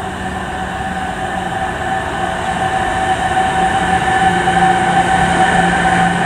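DB class 185 electric locomotive hauling a freight train of car-carrier wagons as it approaches: a steady whine over the rolling noise of the wheels, growing louder.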